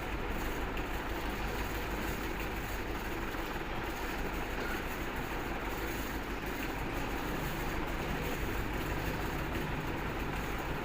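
Steady road-traffic noise, an even rumble with no single event standing out.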